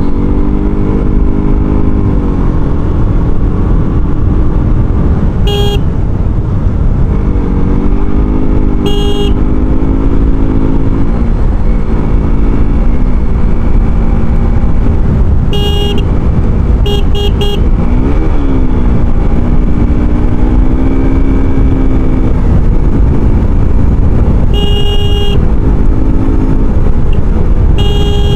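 A road vehicle's engine running with a steady rumble, its pitch rising and falling as it speeds up and slows. Short horn beeps sound several times, including a quick triple about halfway through.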